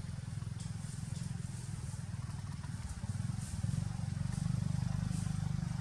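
A small engine running nearby with a steady low, pulsing rumble, getting louder about three seconds in.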